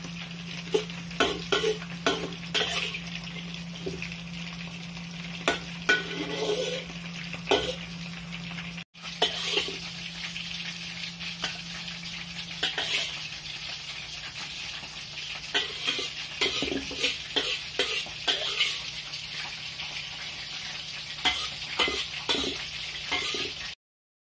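Water spinach and bean sprouts stir-frying in a wok: a steady sizzle, with repeated scrapes and clanks of the metal spatula against the wok as the vegetables are tossed and scooped out. A steady low hum runs underneath.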